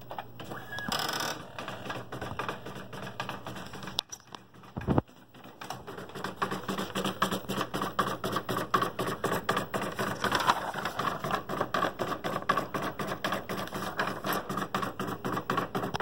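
Tractor-feed computer printer running with a fast, even clicking, several clicks a second, starting about five seconds in after a single knock; the attempt to print fails.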